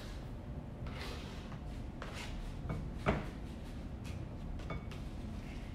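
Table knife scraping cubes of butter off a plastic cutting board into a glass bowl of flour, with soft scrapes and a sharper knock about three seconds in.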